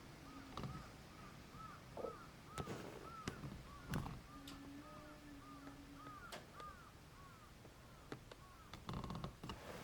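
A bird calling in a fast series of short, arching notes, about three a second, with scattered sharp clicks and knocks over a low rumble.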